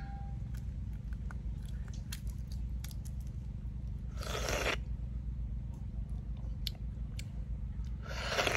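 Someone eating a balut (fertilised duck egg): scattered small clicks, and two short noisy mouth sounds, one about four seconds in and one near the end.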